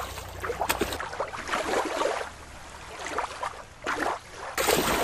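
Water splashing and sloshing, with a louder splash about four seconds in as a killer whale lands in a show pool.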